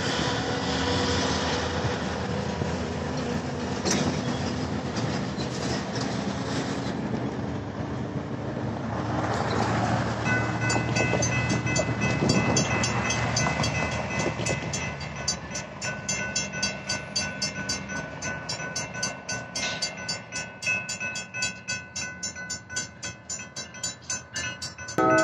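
Road traffic passing, then about ten seconds in the railroad crossing warning bells start ringing with rapid, evenly spaced strikes and keep on, signalling an approaching train. A train horn starts right at the end.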